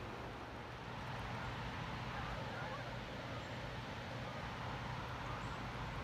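Steady rush of fast-flowing river water.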